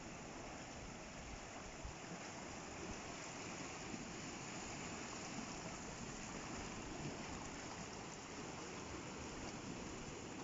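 Sea water washing over and through rocks: a steady rush of surf with small irregular swells.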